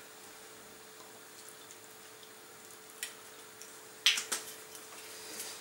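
Soy sauce being shaken out of a glass bottle onto a salad: a faint steady hum, with a sharp click about three seconds in and a few sharper clicks and knocks about four seconds in.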